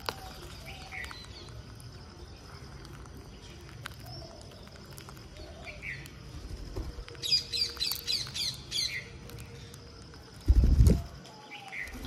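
Rose-ringed parakeets calling: a few short single calls, then a quick run of about eight shrill screeches some seven seconds in. Near the end comes a loud, low buffeting burst, the loudest sound here.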